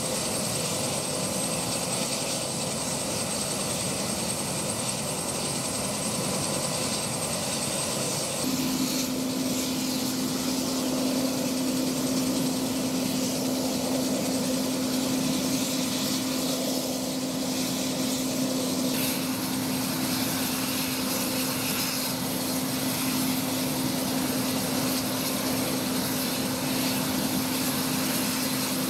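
Fire department rescue helicopter running on the ground, a steady, unbroken engine-and-rotor noise. A steady low hum joins about eight seconds in.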